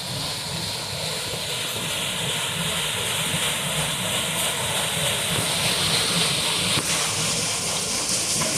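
Steady rushing of flowing water, with a constant hiss.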